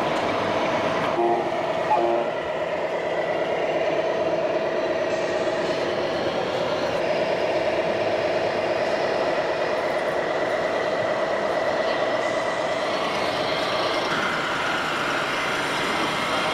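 Steady engine-like drone from a radio-controlled model vehicle's sound module, with a few short tones about one to two seconds in.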